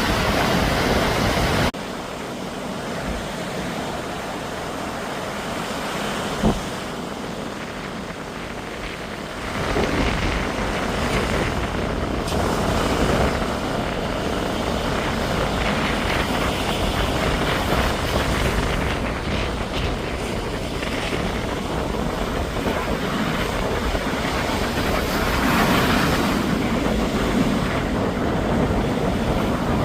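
Sea waves breaking and washing onto a beach: a continuous rush of surf with a deep rumble underneath, swelling and fading. It drops suddenly about two seconds in and builds back up after about ten seconds.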